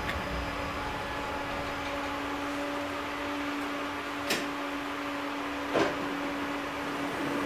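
Steady low electrical hum inside a TVZ 71-931 Vityaz-M tram, with two short knocks about four and six seconds in, the second louder.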